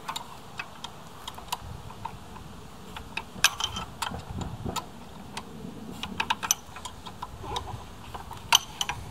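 Irregular sharp metallic clicks and clinks of hand tools working bolts loose on an electric scooter's frame, with the loudest clinks about three and a half and eight and a half seconds in.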